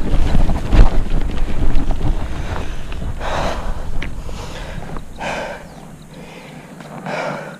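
Wind buffeting the microphone and the rumble of a mountain bike rolling over a dirt trail, dying away after about five seconds as the bike slows. The rider breathes out hard three times, about two seconds apart.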